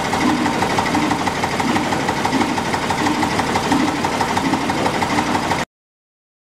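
Vintage stationary diesel engines running steadily, a fast even mechanical beat with a heavier thud about twice a second. The sound cuts off suddenly near the end.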